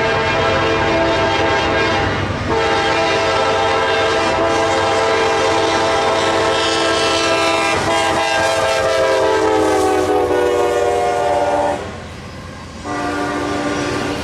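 Nathan Airchime K5LA five-chime locomotive air horn sounding in long blasts over the train's running noise. There is a brief break about two seconds in. Then a long held chord slides lower in pitch toward its end and cuts off, and after a short pause another blast starts near the end.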